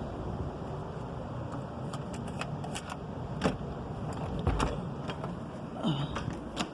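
Irregular knocks, clicks and thumps from a room upstairs, heard over a steady low rumble, with the heaviest thump about four and a half seconds in.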